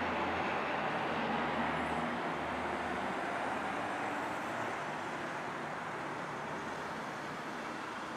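Dash 8 Q400 turboprop on landing approach: its two Pratt & Whitney PW150A engines and propellers make a steady hum under a broad rush of noise. The low hum fades after about three seconds, and the whole sound gradually gets quieter as the aircraft flies on toward touchdown.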